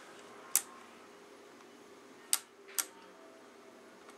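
Three sharp clicks from the controls of a Heathkit GD-1190 metal detector being switched and adjusted: one about half a second in, then two close together past the two-second mark, over a faint steady hum. The detector gives no beep.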